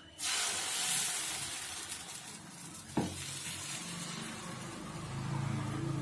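Kodo-millet and lentil adai batter sizzling as it lands on a hot, oiled tawa, starting abruptly about a quarter second in and going on as it is spread with a spoon. A single sharp knock comes about three seconds in.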